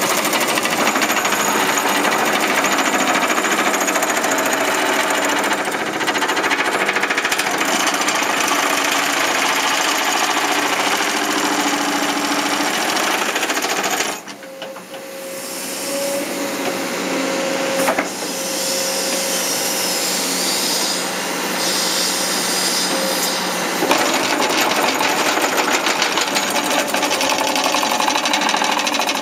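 Vibratory compaction bucket (Tenatsu-ō) on a 0.8 m³ backhoe, vibrating against loose soil with a fast, dense rattle as it compacts the fill. About halfway it drops off for a moment, then builds back up to full over several seconds.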